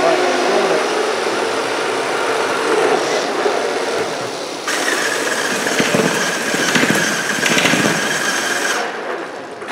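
A FIRST Robotics Competition robot's electric motors running with a steady mechanical noise. About halfway through, a high steady whine comes in, then cuts off near the end.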